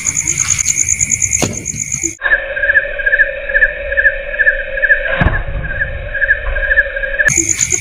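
Night insects chirping in a rapid, steady high pulse. About two seconds in, the sound cuts to a duller, muffled recording: a chirp repeating two or three times a second over a steady hum, with one thump about five seconds in. The insect chirping returns near the end.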